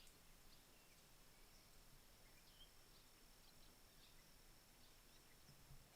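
Near silence: faint outdoor ambience with a thin, steady high tone and a few faint, scattered chirps.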